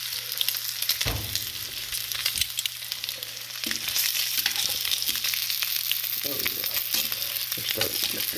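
Split red hot links sizzling and crackling in butter in a cast-iron skillet, with metal tongs knocking and scraping as they turn the links. The sizzle grows louder about four seconds in.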